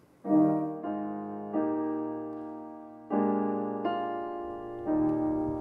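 Piano playing slow chords, about six in all, each struck and left to ring and fade before the next.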